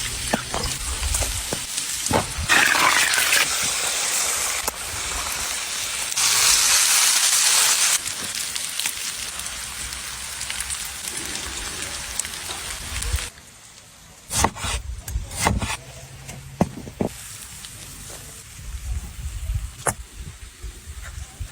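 Lamb ribs sizzling on a hot stone slab, a steady hiss that gets louder for a few seconds and then drops away. In the second half the hiss is faint, with several sharp knocks and clicks.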